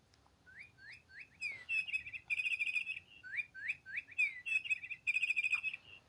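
Electronic chirping bird cat toy playing its recorded birdsong twice: each time a few rising chirps, a falling swoop, then a fast trill. It is the same phrase both times, since the toy does not cycle through different sounds.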